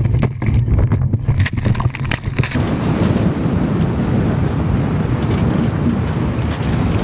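For about the first two and a half seconds, a speedboat running hard with a low rumble and repeated jolts. After that, wind buffets the microphone in a steady rush that covers everything else.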